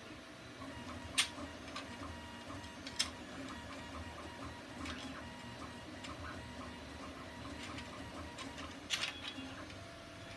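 Hard plastic clicks as the pieces of a 3D-printed interlocking puzzle are shifted against each other, a few sharp ones standing out. Underneath runs the steady hum and a run of small regular ticks of a 3D printer at work.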